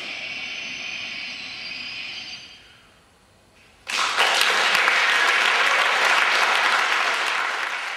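The backing music's last ringing notes fade out, and after a short pause an audience breaks into loud applause about four seconds in.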